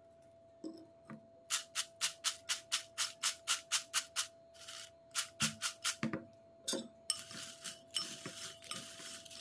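Crisp fried banana chips rattling in a container as it is shaken in quick strokes, about four a second, then a denser crackling rustle of the chips near the end.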